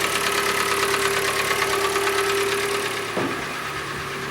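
Hyundai ix35's 2.0-litre G4NA four-cylinder petrol engine idling with a strong knock: piston slap from scuffed pistons.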